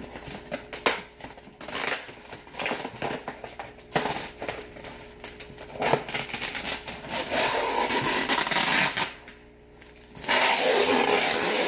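Clear packing tape being peeled and torn off a styrofoam shipping box, in several long ripping stretches with handling clicks and knocks between them. The loudest rip comes near the end.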